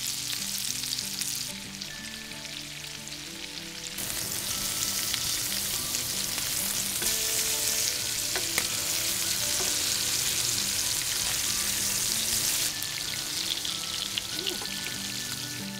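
Kingfish fillets sizzling in hot oil in a frying pan, a dense steady hiss that grows louder about four seconds in.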